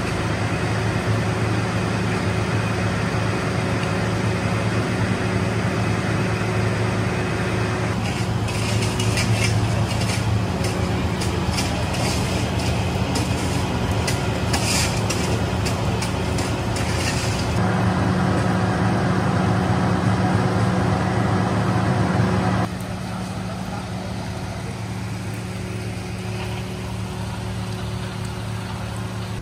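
An engine idling steadily with a low, even hum. A run of sharp clicks and ticks comes over it through the middle, and the hum steps down in level near the end.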